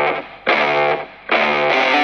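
Rock music with distorted electric guitar, the same held chord struck over and over, about once every 0.8 seconds, each strike fading before the next.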